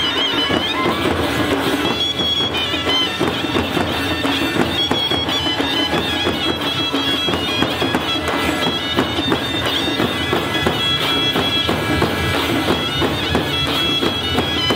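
Live tribal folk dance music: large double-headed barrel drums (dhol) beaten in dense, continuous strokes under a shrill reed pipe that holds a wavering, droning melody.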